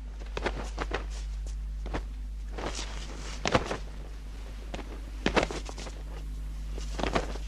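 Footsteps: scattered, uneven steps and knocks, a few louder ones about three and a half and five seconds in, over a steady low hum on the film soundtrack.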